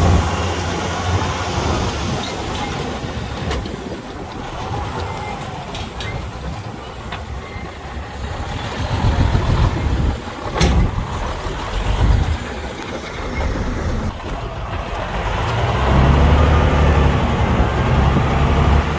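Diesel engine of heavy earthmoving machinery running, with its engine note getting louder around the middle and again near the end, as if under load. A few sharp metallic clanks are heard along the way.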